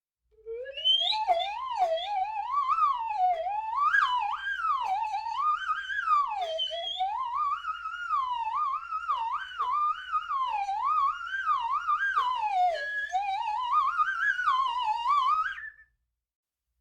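Cartoon sound effect: a single whistle-like tone that slides continuously up and down in pitch for about fifteen seconds with a wavering wobble, then stops.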